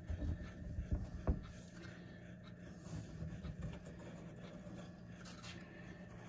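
Quiet handling noise from paint-craft tools: a few soft knocks about a second in, then faint scuffs, over a steady low hum of room tone.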